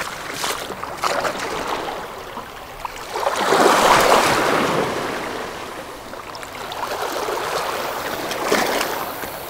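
Small waves washing against the shoreline, a steady wash of water that swells up twice, about four seconds in and again near the end.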